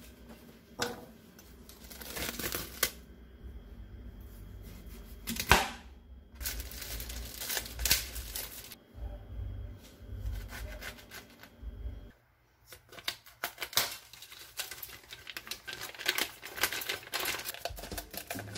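Food-prep sounds on a wooden cutting board: scattered knife taps and chops as vegetables are cut and handled, with one sharper knock about five and a half seconds in. Near the end, a plastic tofu package crinkles as the knife cuts it open.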